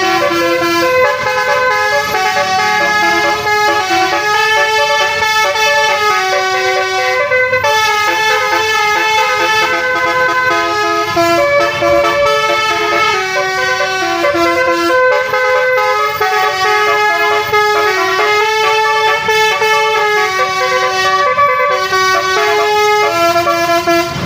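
A bus's telolet horn, a set of musical air horns, playing a melody continuously, its notes changing in quick steps.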